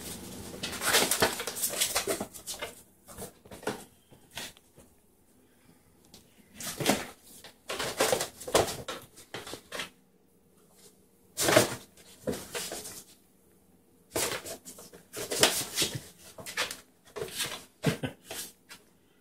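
Kittens pouncing on and batting an empty cardboard 12-pack box, scraping and sliding it across a tile floor in irregular bursts of scratching and rustling with short quiet pauses.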